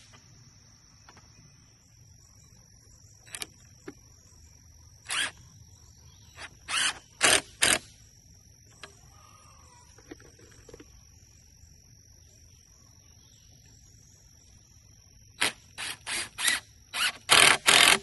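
Cordless drill driving screws into thin wooden trellis strips in short trigger bursts: a few through the middle and a quick run of about six near the end. A steady high insect buzz sits underneath.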